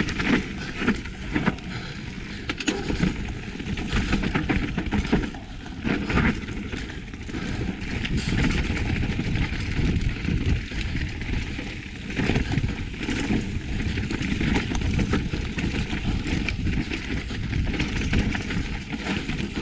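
Mountain bike descending a rocky trail: a steady rush of wind and tyre noise over dirt and stones, broken by frequent knocks and rattles as the bike bounces over rocks.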